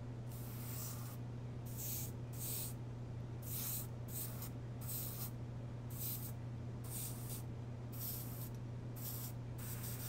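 Airbrush spraying a foamy, water-thinned black acrylic paint onto a plastic part, in about a dozen short bursts of hiss triggered one after another. A steady low hum runs underneath.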